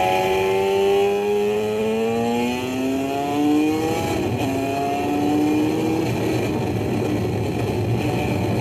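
Two-stroke motorcycle engine accelerating. The revs climb, drop at a gear change about four seconds in, and climb again, then the engine runs on more evenly after about six seconds.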